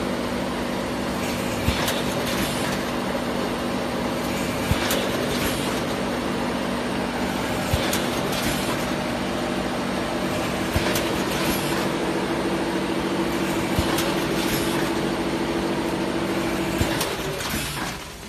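Vertical form-fill-seal snack packing machine with multihead weigher running: a steady mechanical hum with a sharp knock about every three seconds. The hum cuts off near the end.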